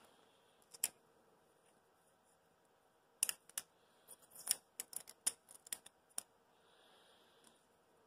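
Hard 3D-printed plastic parts clicking and tapping against each other as they are handled and fitted together: one click about a second in, then a quick run of sharp clicks between about three and six seconds in.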